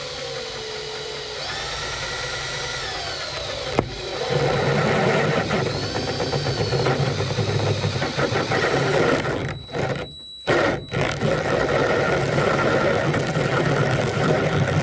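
Handheld drill boring a two-flute step drill bit into a plexiglass sheet. The motor whines at first, and from about four seconds in the bit bites with a louder, rougher cutting noise. Two brief stops come about two-thirds of the way through.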